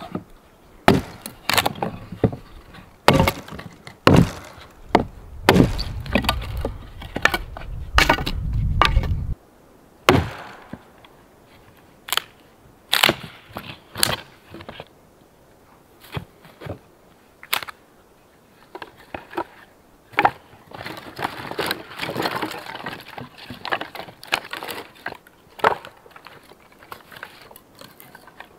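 Hatchet strikes splitting dry kindling on a log: sharp chops and wood cracking for roughly the first ten seconds, over a low rumble that cuts off suddenly about nine seconds in. After that, split firewood sticks knock and clatter against each other as they are stacked and gathered up.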